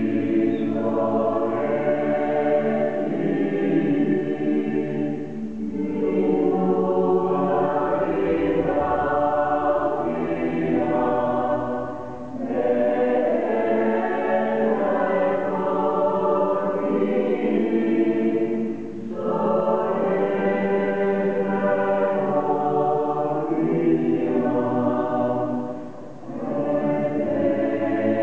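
Mixed choir of women's and men's voices singing unaccompanied in sustained chords in a stone church. The singing comes in long phrases, with a brief dip between phrases about every six or seven seconds.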